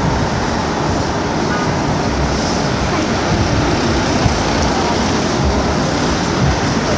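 Steady outdoor rumble of road traffic and wind at a railway level crossing, with no distinct tones standing out.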